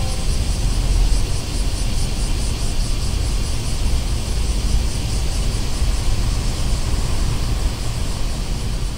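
Steady loud rumbling noise, heaviest in the low end, with no clear pitch or rhythm.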